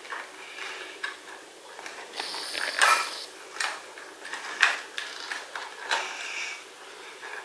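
Plastic clicking and knocking as a Playmobil figure is pushed into the cockpit of a Playmobil toy jet and the hinged cockpit window is handled. The sharpest knocks come about three and four and a half seconds in.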